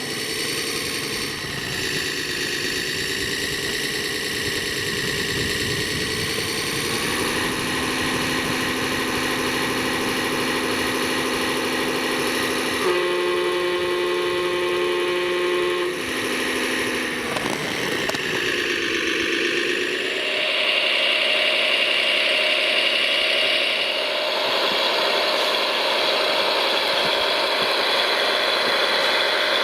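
Engine sound of RC construction machines running steadily and revving, its pitch rising and falling several times. About halfway through, a flat, steady tone lasts a few seconds.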